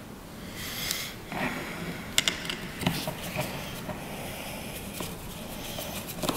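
Small screws being driven with a hand screwdriver into the plastic housing of a battery's LED indicator panel: irregular light clicks and scrapes of the screwdriver and the parts being handled.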